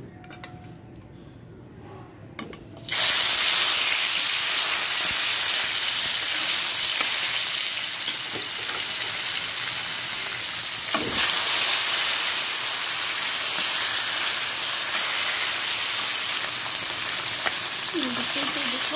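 Marinated climbing perch (koi fish) sizzling in hot mustard oil in a kadai. After about three seconds of near quiet, the sizzle starts suddenly and loudly as the fish goes into the oil, then holds steady, with one light knock about eleven seconds in.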